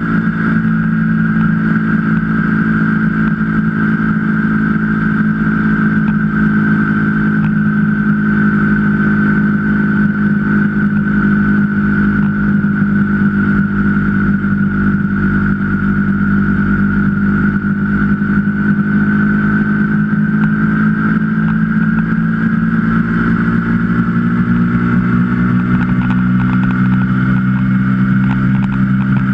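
KTM 125 Duke's single-cylinder four-stroke engine running steadily at cruising speed, heard from a camera mounted on the bike. Its pitch drops slightly near the end.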